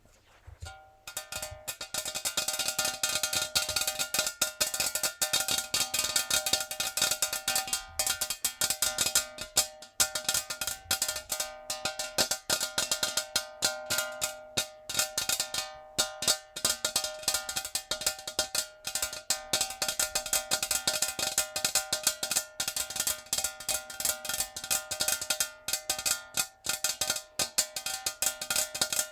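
Natural fingernails tapping very fast on a metal jar: a dense stream of clicks, with the jar ringing at a few steady pitches. It starts about a second in, after a brief quiet.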